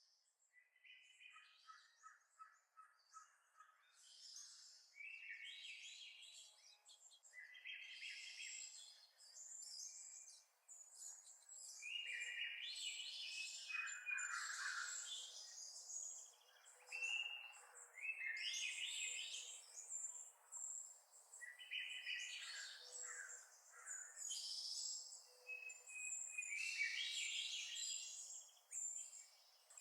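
Birdsong alarm tone played through a device's small speaker: repeated chirping phrases that start faint and grow louder over the first dozen seconds, then keep going at a steady level.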